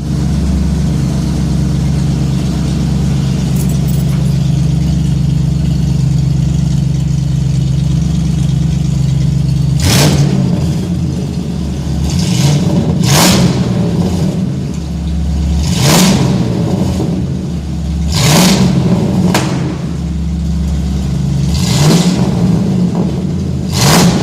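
Vehicle engine heard through its exhaust, idling steadily for about ten seconds, then blipped six or seven times in short revs that rise and fall back to idle.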